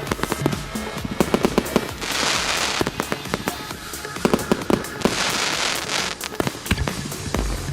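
Firework cake СС8204 'Фейерверк желаний' firing: a rapid run of sharp cracks and pops throughout, with two longer hissing bursts about two and five seconds in.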